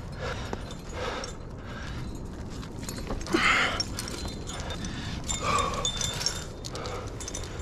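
A crack climber breathing hard through the moves, a run of heavy exhales with the loudest about three and a half seconds in, and faint metallic clinks of trad gear on the harness in the second half.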